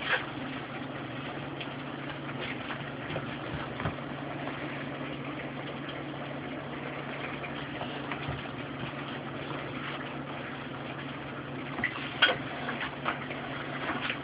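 Pots simmering on an induction cooktop: a steady hiss with a low hum underneath. A few light knocks near the end.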